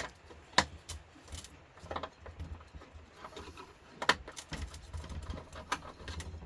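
Handling knocks and clicks from a George Foreman grill's plastic housing as it is turned over and set down, a handful of separate sharp taps with low hum between them.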